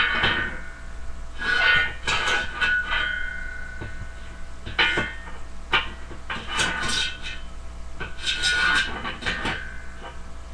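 Iron weight plates clanking against the barbell and each other as plates are pulled off each side of the bar: a series of sharp metal clanks, each ringing briefly.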